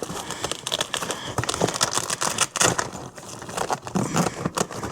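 Panels and fabric of an insulated food delivery bag being handled and fitted: irregular crinkling and rustling with small clicks.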